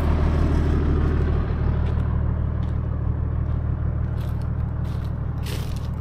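Toyota LandCruiser 80 series four-wheel drive's engine running steadily while driving along a gravel dirt track, with tyres crunching and scraping over loose stones near the end.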